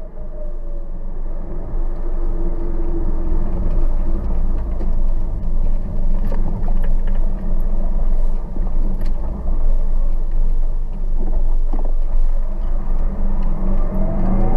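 A car driving along with its engine and road noise. The engine pitch drops in the first second and climbs again near the end as the car slows and picks up speed, with a few faint clicks along the way.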